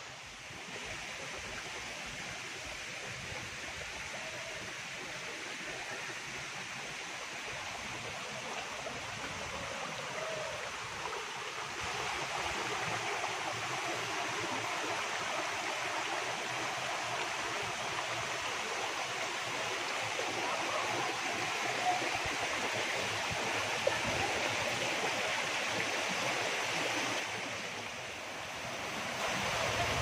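Shallow stream of water flowing over rocks and small cascades: a steady rushing, louder from about twelve seconds in.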